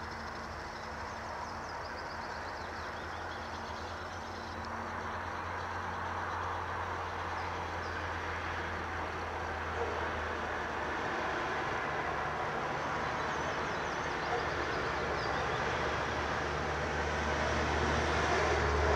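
Low, steady rumble of a distant vehicle that slowly grows louder towards the end, with faint birdsong in the background.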